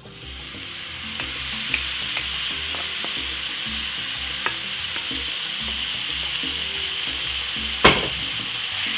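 Seasoned beef strips sizzling in hot oil in a stir-fry pan, the hiss starting as the meat goes in and building over the first second or two, then holding steady. A few light clicks and one louder knock near the end.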